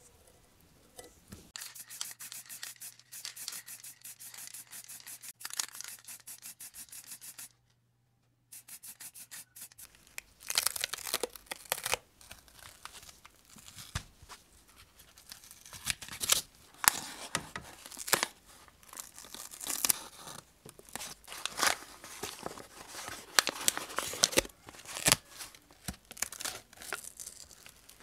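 Masking tape being peeled, torn and rubbed down by hand on a small plastic model car body. It starts as a fast, even crackle of tape pulling off, stops briefly, then turns to irregular crinkling and rubbing.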